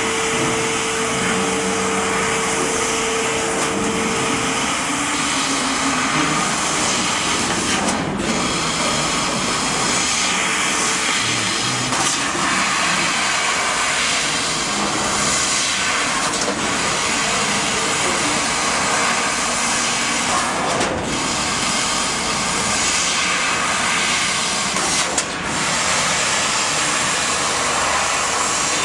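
Laser cutting machine cutting sheet metal: a steady rushing hiss that briefly dips every few seconds. A steady hum sounds under it during the first few seconds.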